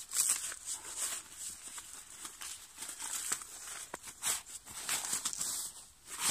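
Nylon carry bag and chair fabric rustling and crinkling in irregular bursts as a folded camping chair is pulled out of its bag.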